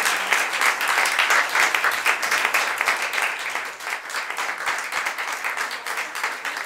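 Audience applauding: dense, continuous hand clapping that eases slightly in the second half.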